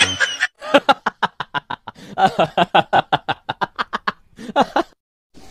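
A person laughing in quick runs of short 'ha' syllables: two long runs, then a short one near the end.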